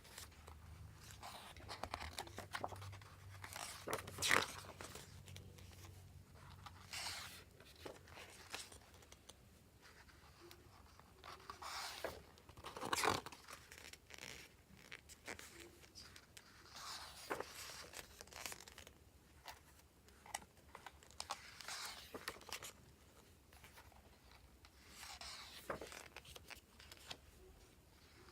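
Packaging and a photobook being handled: irregular rustling, crinkling and tearing noises with occasional sharp clicks, the loudest about four and thirteen seconds in.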